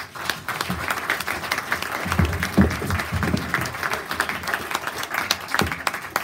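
Audience applauding, a dense spread of many hands clapping.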